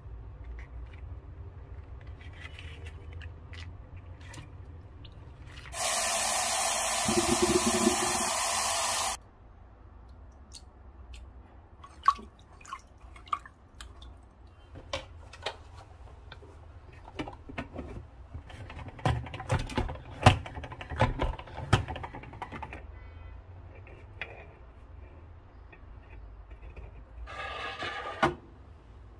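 Kitchen tap running into a bowl of sliced lotus root for about three seconds, then water splashing and clinking as the slices are swished by hand in the bowl. A short rattle comes near the end.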